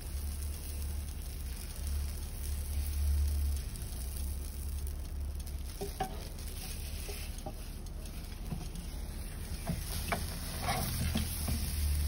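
Red velvet batter sizzling on a hot bubble-waffle iron as it is poured, over a steady low hum. In the second half come a series of metal clicks and knocks as the iron is closed over the batter.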